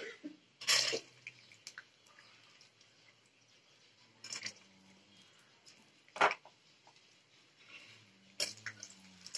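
Peanuts tipped into hot oil in an aluminium karahi, then a metal spatula knocking and scraping against the pan in a few separate sharp strokes, with a faint frying sizzle between them.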